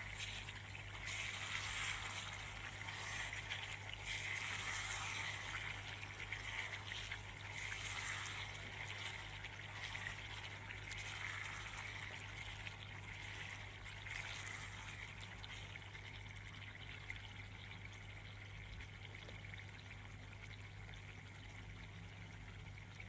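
Stew simmering in a cooking pot: a soft, uneven bubbling that slowly grows fainter, over a steady low hum.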